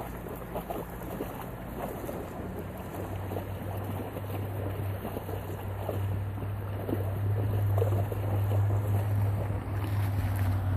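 Steady wash of a flowing river with wind on the microphone, under a low steady hum that grows louder from about three seconds in. Faint scattered crunches, like a dog's paws on loose gravel.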